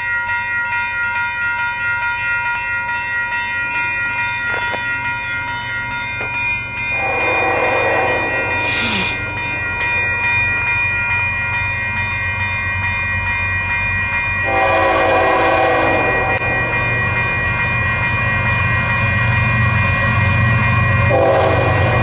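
Canadian Pacific GE ES44AC diesel locomotive's air horn sounding for a level crossing: two long blasts, then a third starting near the end. Under the horn the crossing bell rings steadily, and the low rumble of the approaching locomotives grows louder.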